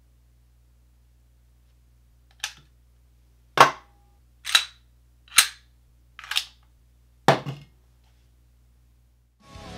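Six sharp clicks and clacks about a second apart as a Taurus TH9C pistol is handled on a wooden tabletop: magazines set down on the wood, one seated in the pistol, and the pistol laid down. Music starts just at the end.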